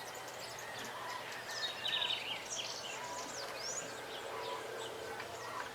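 Birds calling: scattered short high chirps and falling whistles over a steady outdoor background hiss, busiest about two to three seconds in.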